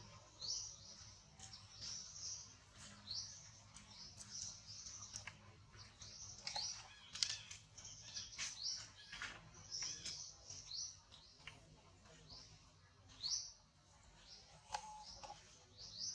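Baby macaque squealing in distress while an adult handles it roughly: a string of short, high, rising cries, one or two a second.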